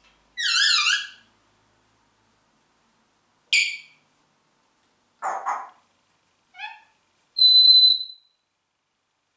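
Congo African grey parrot whistling and calling in separate bursts. First comes a warbling whistle, then a few short sharp calls and a quick chirp, and near the end one long steady whistle, the loudest of them.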